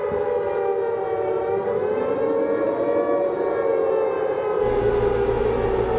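Civil defense siren sounding one long, steady tone that sags slightly in pitch and recovers. A low hum comes in about four and a half seconds in.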